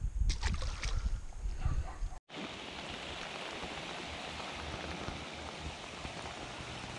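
A low rumble with a few knocks for about two seconds. Then, after an abrupt cut, a steady even hiss of rain falling on a river's surface.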